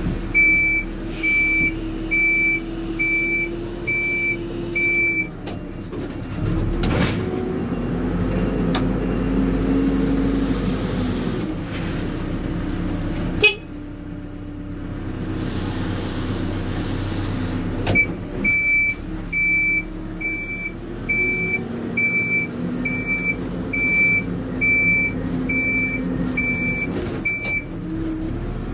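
Hidromek HMK 102S backhoe loader's diesel engine running, heard from inside the cab, its revs rising and falling several times. A reversing alarm beeps about once every three-quarters of a second for the first five seconds and again over most of the last ten seconds. A single sharp clank comes about halfway through.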